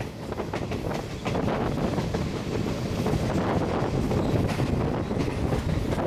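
Electric passenger train running along the track, a steady rumble with scattered clicks of the wheels on the rails, mixed with wind buffeting the microphone at the open window. It gets louder about a second in.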